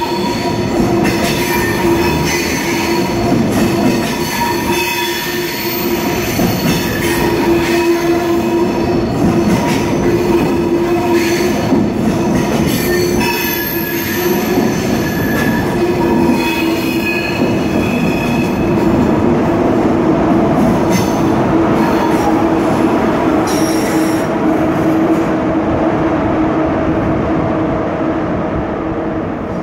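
ICE high-speed train rolling along the platform, its wheels squealing with shifting high screeches over a steady rumble and hum. The sound fades near the end as the train pulls away.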